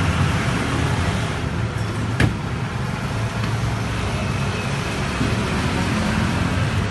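Steady street traffic noise with vehicle engines running, and one sharp click about two seconds in.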